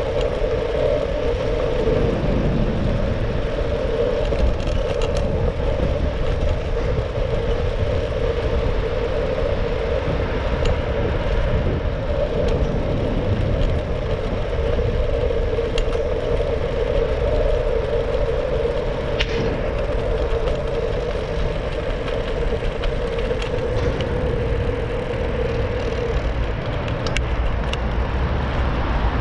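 Steady wind and tyre noise from a Brompton folding bicycle ridden through a road tunnel, with low rumble of wind on the camera microphone. A steady hum runs underneath and fades out about 26 seconds in as the tunnel ends, and a few faint clicks come through.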